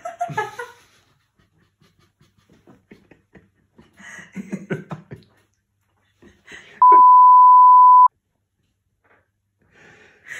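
A loud, steady, high censor bleep lasting just over a second, starting and stopping abruptly in the middle of a woman's laughter. Quieter bursts of her laughing come before it.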